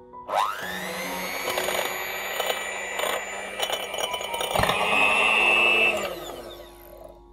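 Electric hand mixer whipping egg whites and sugar into a stiff meringue. The motor whines up to speed about half a second in and runs steadily. It gets louder and higher-pitched near the end, then winds down and stops.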